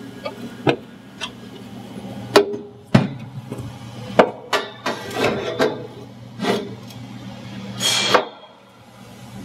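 Chromoly roll-cage tube clanking and knocking against the cage and car body as the A-pillar bar is worked into place. The knocks are sharp and irregular, with a longer, brighter clank about eight seconds in.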